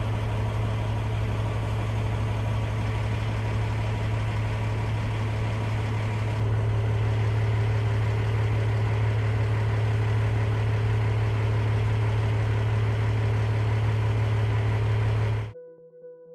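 Steady engine and rotor drone of a helicopter, heard from on board while filming from the air. It is a loud, even low hum with a few constant tones above it, rising slightly about six seconds in and cutting off suddenly near the end.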